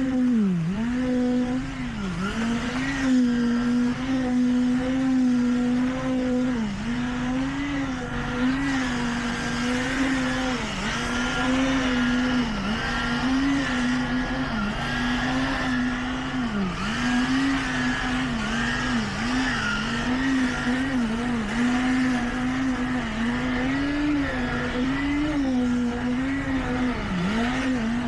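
A motor on construction machinery running at a steady high speed, its pitch dipping briefly again and again as load comes on and then recovering.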